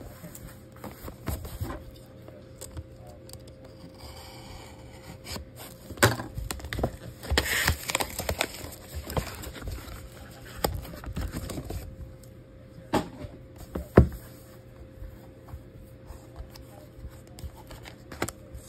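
Cardboard packaging of a trading-card box being torn open and handled, with a stretch of ripping about seven seconds in and scattered clicks and knocks, the loudest a sharp knock about fourteen seconds in.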